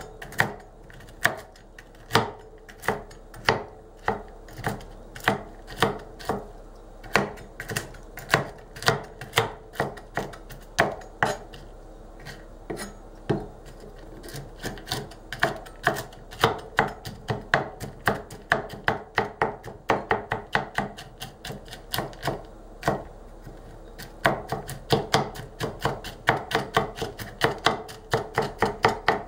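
Ulu knife rocking through walnuts in a hollowed chopping bowl: a steady run of sharp blade knocks on the board, about two a second, coming faster and closer together in the last few seconds.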